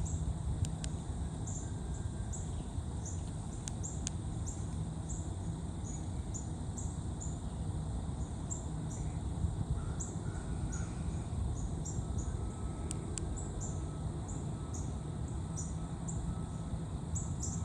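Steady low wind rumble in woodland, with faint, high, short chirps from a small bird repeating about twice a second and a few scattered clicks.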